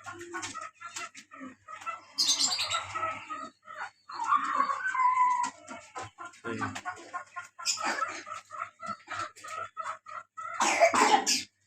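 Chickens clucking and chirping in short repeated calls, with two louder noisy bursts, one about two seconds in and one near the end.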